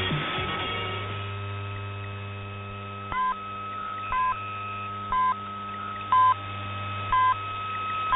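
Hourly time-signal pips received on shortwave AM radio: five short two-tone beeps one second apart, then a longer sixth beep marking the top of the hour. Under them run a steady heterodyne whistle and hum, in narrow shortwave bandwidth.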